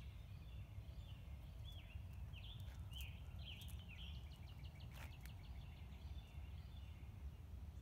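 Faint garden ambience: small birds chirping and calling in short gliding notes, with one quicker trilled run in the middle, over a low steady rumble.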